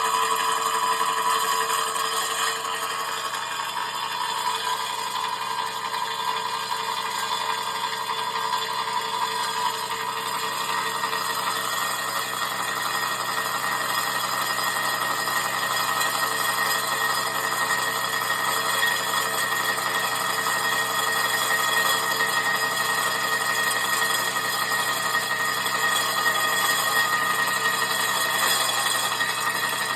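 Slitting saw blade turning steadily through an intercooler on a milling machine. It makes a continuous whine over machine noise, with a tone near the start fading and a higher tone growing stronger about halfway through.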